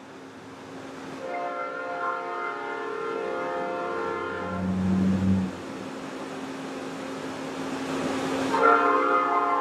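Train horn sounding in two long, steady blasts: the first lasts about three seconds, and the second begins near the end. A brief lower tone comes between them, over a steady low hum.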